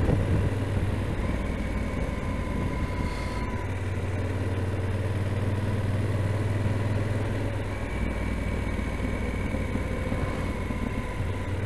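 Yamaha XT1200Z Super Ténéré's parallel-twin engine running steadily at cruising speed, with a constant rush of wind and road noise over it.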